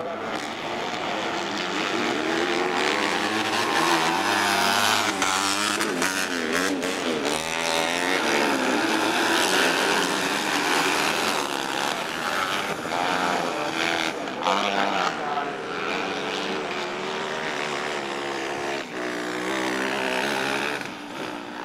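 Several Racer 250 class autocross buggies with small 250 cc engines racing together, their engines revving up and down over one another as they pass.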